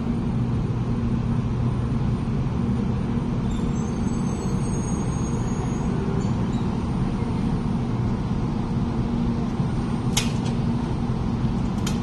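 Taiwan High Speed Rail 700T train pulling into the station alongside the platform: a steady rumble of the moving train with a low hum under it. A few short sharp clicks come about ten seconds in and again near the end.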